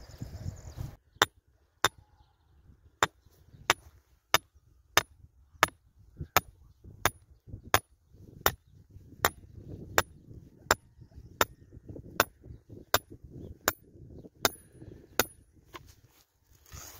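A hammer driving a stake into the ground: about twenty sharp, evenly spaced blows, roughly three every two seconds, stopping shortly before the end.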